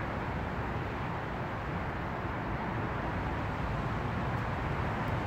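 Steady outdoor background rumble: a constant low noise with no distinct events.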